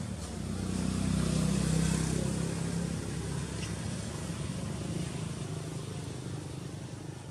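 A motor vehicle drives past: a low engine and road hum that swells about a second in, then slowly fades away.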